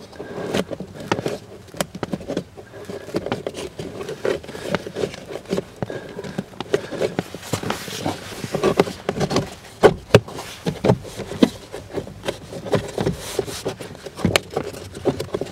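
A pleated activated-carbon cabin air filter being pushed and worked by hand into the Volkswagen Passat B6's plastic filter housing: irregular scraping and rustling, with sharp knocks and clicks of the filter frame against the housing, the loudest about ten seconds in.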